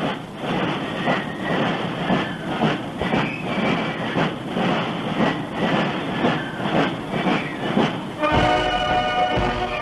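A large crowd cheering and shouting, a dense roar broken by frequent short sharp bursts. About 8 seconds in, band music with held notes comes in over it.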